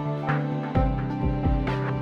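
Background music with a steady beat: sustained pitched notes over regular low beat hits.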